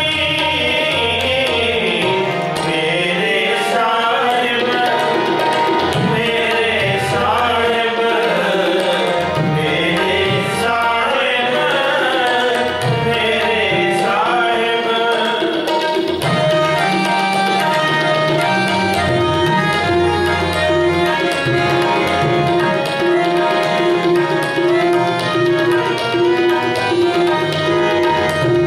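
Sikh kirtan: a man singing over harmonium and tabla. About halfway through the singing stops, and the harmonium's steady held notes and the tabla's strokes carry on alone as an instrumental passage.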